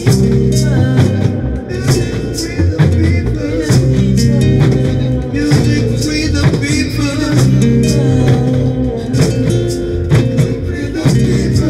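A live acoustic reggae band playing a deep, moving bass line over a steady percussion beat, with a voice singing the melody.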